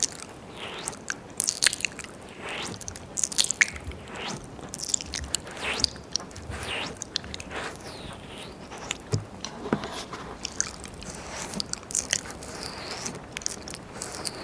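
Close, wet mouth sounds of ear licking and ear eating into a 3Dio binaural microphone: irregular tongue clicks, smacks and squelches, several a second.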